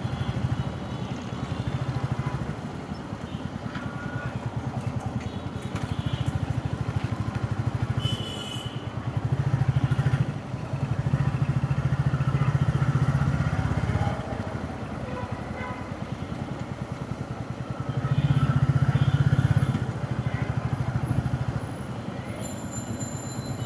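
Motorcycle engine running under the rider, rising and falling with the throttle and swelling louder several times, with a brief high-pitched sound about eight seconds in.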